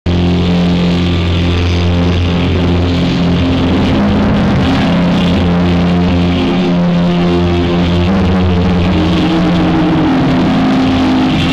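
Live rock band over a large concert PA, an electric guitar solo with long held notes over a heavy, constant low bass. The camera's microphone is faulty, so the sound is distorted and boomy.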